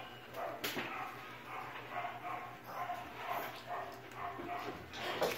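A dog whimpering in a string of short, pitched cries, about two or three a second, with one sharp click about a second in.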